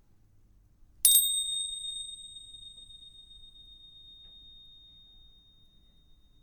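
A high-pitched bell struck once about a second in, then ringing on as one clear tone that fades slowly and is still faintly ringing at the end.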